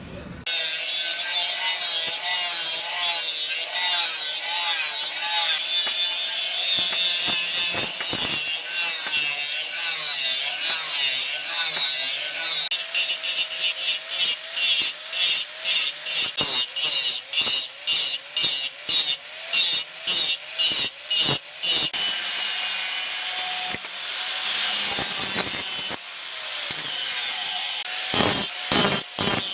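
A saw cutting wood: a continuous scraping at first with a wavering tone under it, then quick back-and-forth strokes about two a second through the second half.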